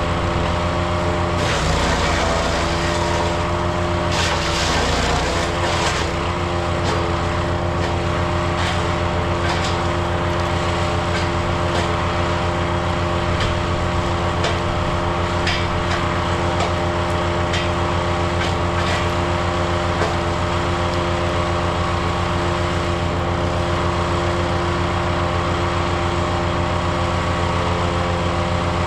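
Powerfist 420cc wood chipper engine running steadily while brush is fed through, with sharp cracks of branches being chipped. The engine note dips under load twice in the first six seconds.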